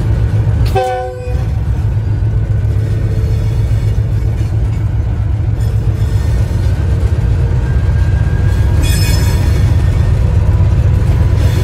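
Diesel-electric locomotive running steadily underway, heard from the cab, with a deep continuous engine rumble. About a second in, its horn sounds briefly in a short chord.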